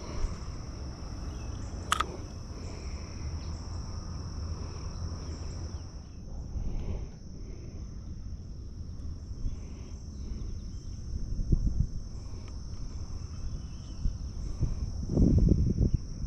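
Steady high-pitched insect chorus, with low wind rumble on the microphone. A sharp click about two seconds in, and a few low thumps of handling near the end.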